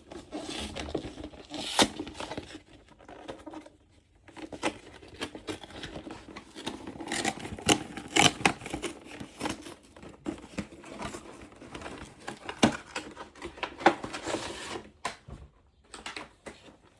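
Cardboard and plastic packaging being handled: rustling and crinkling with tearing sounds and scattered sharp clicks and light knocks, as foil booster packs are pulled out of a Pokémon card box. There is a short lull about four seconds in and another near the end.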